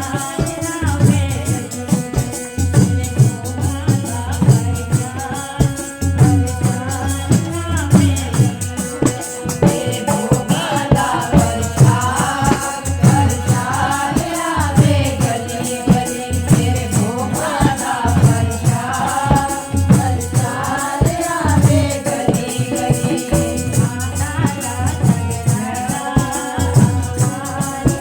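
Devotional Hindi bhajan music: a melody, partly sung, over a fast, steady beat of shaken rattle-type percussion that runs without a break.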